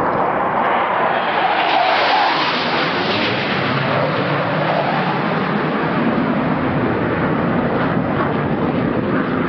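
Loud, steady rushing noise of a Sukhoi Su-24 jet making a low pass over the sea, its tone sweeping in the first few seconds.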